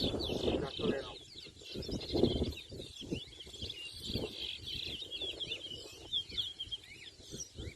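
Caged towa-towa seed finches singing in a song race: a continuous run of quick, high chirping and whistled notes. Irregular low sounds are underneath.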